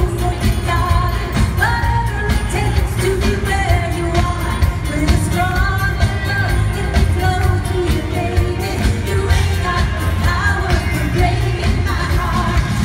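A woman singing a disco song live into a handheld microphone, backed by a full band with a steady bass and drum beat, all amplified through the PA.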